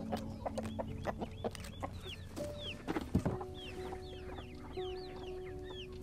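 Chickens clucking in short, broken calls, with a run of high, falling chirps in the second half and a low thump about three seconds in. Soft, held music notes sit underneath.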